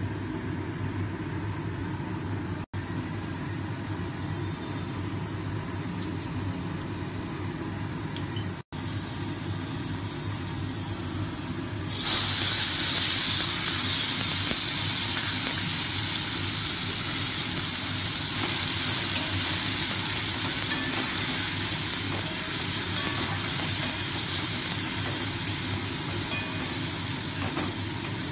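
A low steady hum, then about twelve seconds in a sudden loud sizzle as wet grated raw mango goes into hot mustard oil in a steel wok. The sizzling carries on with scattered clinks and scrapes of a steel spatula against the pan as the mango is stirred.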